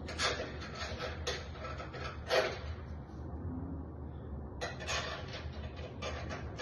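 Door lock hardware being handled and fitted back together: a series of short metallic rattles and scrapes, the loudest about two and a half seconds in.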